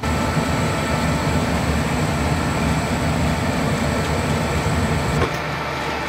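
Gas burners and draft inducer of a 90%+ efficient furnace running with a steady low roar. About five seconds in, the burner flame cuts out with a click and the roar drops, leaving the inducer humming: the high-limit switch has opened because the furnace is overheating with its blower unplugged.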